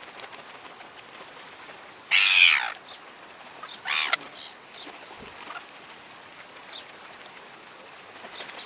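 Hungry gulls squawking for food: one loud call about two seconds in, a shorter one about four seconds in, and a few faint calls in between, with another loud call starting at the very end.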